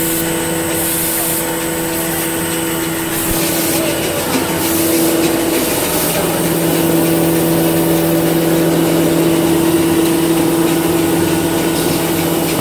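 Facial tissue soft-packing machinery running: a steady mechanical hum with a low drone, over a continuous machine noise. Short bursts of high hiss come and go in the first half.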